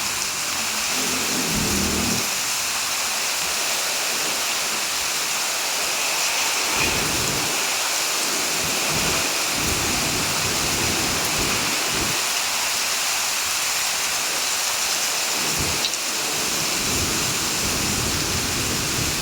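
Heavy rain falling steadily as a dense hiss, with deep low rumbles swelling and fading now and then.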